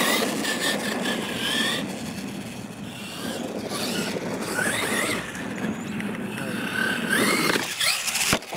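Losi LMT radio-controlled monster truck's brushless electric motor and drivetrain on 2S power, whining up and down in pitch as the throttle is worked, over tyres churning through dirt. A sharp thud near the end as the truck lands from a jump.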